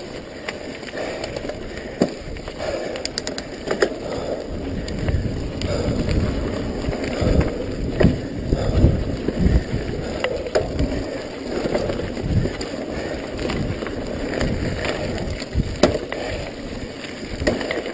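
Mountain bike riding over a dirt forest trail: a steady rumble of knobby tyres on the ground, with irregular clicks and clunks as the bike rattles over bumps.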